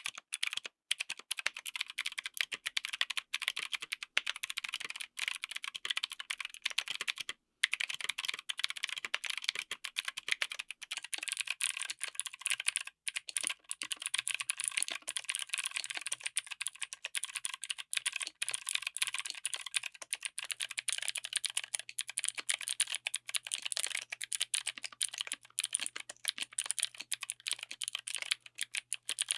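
Fast typing on a mechanical keyboard fitted with clicky switches: a dense, continuous run of sharp high clicks, with short pauses about seven and thirteen seconds in.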